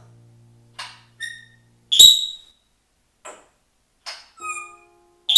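African grey parrot giving a string of about seven short whistles and sharp high calls, the loudest about two seconds in and another at the very end.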